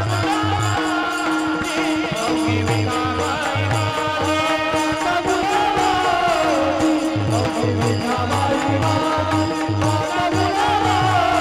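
A group of men singing a Marathi devotional bhajan in chorus, with brass hand cymbals (taal) jingling in rhythm, mridang drum strokes and a steady harmonium drone. The drum beat drops out for a couple of seconds midway and then resumes.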